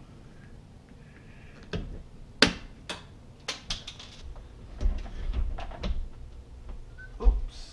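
Scattered clicks and knocks of hands working at a stainless dishwasher, then heavier low thuds and bumps about five seconds in and once more near the end as the dishwasher is shifted in its cabinet opening.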